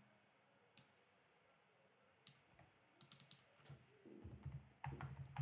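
Faint typing on a computer keyboard: scattered key clicks, with a quicker run of keystrokes about three seconds in and more near the end.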